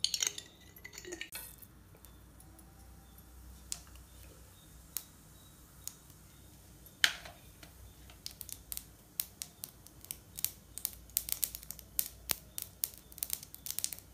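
Groundnut oil heating in a nonstick frying pan: scattered small ticks and pops that come thicker and faster from about halfway, as bits in the hot oil start to crackle. A brief clatter right at the start.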